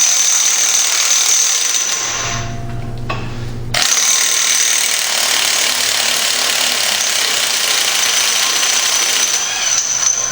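Impact wrench hammering on the front axle shaft nut of a 1999 Dodge Ram 1500 4x4 to break it loose. It hammers, stops about three seconds in, then starts again under a second later and keeps hammering for about six more seconds.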